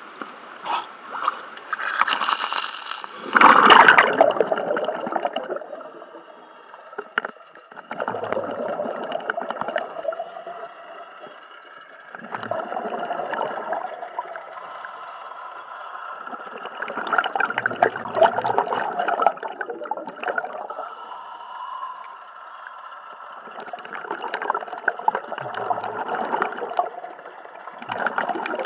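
Scuba regulator exhaust bubbles gurgling underwater in regular bursts about every five to six seconds as the diver breathes out, with quieter gaps on each inhale. A louder rush of water and bubbles comes about two to four seconds in as the diver goes under.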